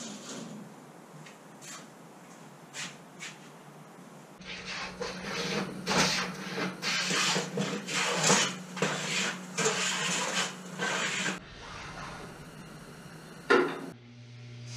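A few faint handling clicks, then about seven seconds of irregular scraping strokes of a hand tool working wood on a bench. Near the end a steady electrical hum comes in.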